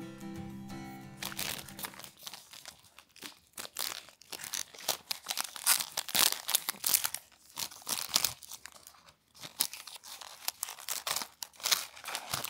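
Clear plastic wrapper on a biscuit being crinkled and torn open by hand, close up: an irregular run of sharp crackles. Acoustic guitar music fades out in the first second or so.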